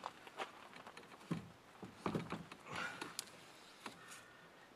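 Pelican Catch 120 plastic fishing kayak being pushed up onto an SUV's roof rack: a few scattered knocks, clicks and scrapes of the hull against the rack.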